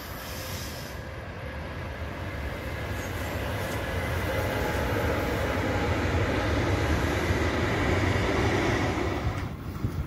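A train running past, its steady rumble and rail noise building over several seconds, then dropping away suddenly near the end.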